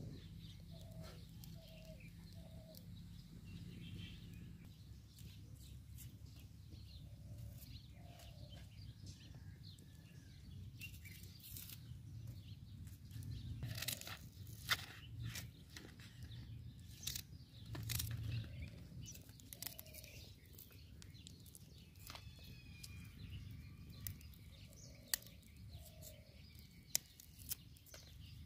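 Outdoor ambience with a steady low rumble and faint bird chirps, broken around the middle by a cluster of sharp clicks from a knife slicing an onion on a leaf, with a few more clicks near the end.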